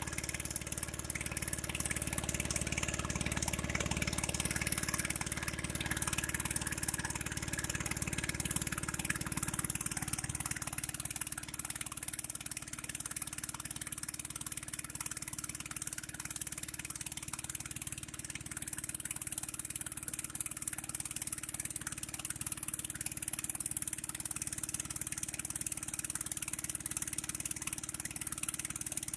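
Vehicle engine running steadily while travelling, with a constant high hiss of wind or road noise. The low rumble eases about ten seconds in.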